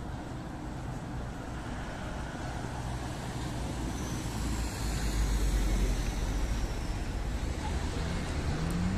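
Steady outdoor noise of road traffic mixed with wind rumbling on the phone's microphone. The rumble is strongest for a couple of seconds about five seconds in.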